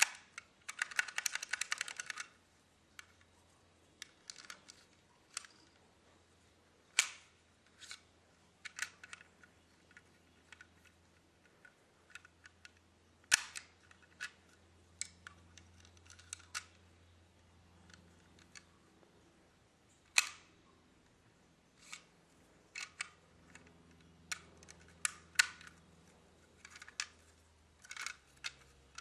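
Plastic Lego parts of a brick-built lock clicking and rattling as the mechanism is worked by hand: a quick rattle of clicks in the first couple of seconds, then single sharp clicks every second or two.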